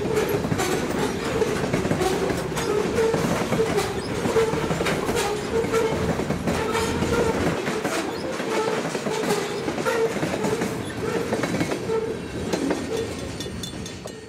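Covered hopper cars of a freight train rolling past on the rails, wheels clicking over rail joints, with a steady pitched tone running under the clatter. The sound dies away near the end.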